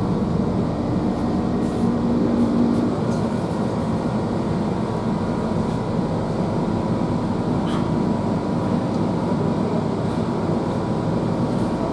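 Inside a GWR Class 165 diesel multiple unit on the move: a steady rumble of the underfloor diesel engine and wheels on the rails. A low engine hum drops away about three seconds in.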